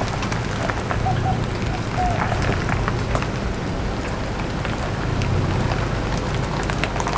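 Pickup truck towing a teardrop camper rolling slowly over gravel: tyres crunching and crackling on the stones over the low rumble of the truck's engine.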